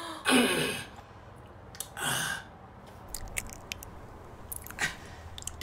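A man's voice making two short breathy exclamations, the first with a falling pitch, followed by a few faint mouth clicks.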